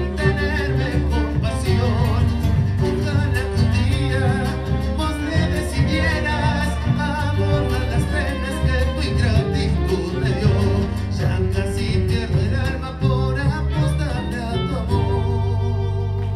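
Live band of acoustic guitars, violin, electric bass and drums playing a song with a singing voice. About fifteen seconds in, the band lands on a final chord that rings out and slowly fades.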